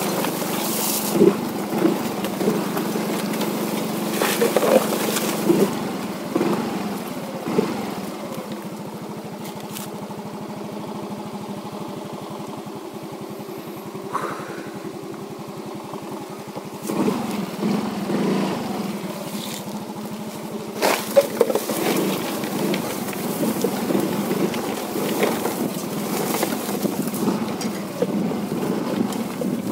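Motorcycle engine running at low speed over rough ground, with knocks and rattles from the bumps. It eases off for several seconds in the middle, then picks up again.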